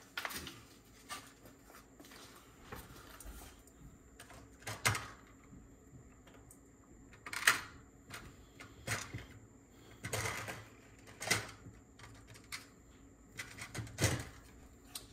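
Scattered light clicks and taps of small parts and their box being handled, with about six sharper knocks spread out, as a box of spare pinch rollers is sorted through.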